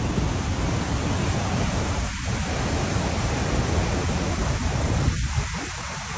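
Steady roar of Murchison Falls, a powerful waterfall on the Nile, its rushing water a dense, even noise heaviest in the low end.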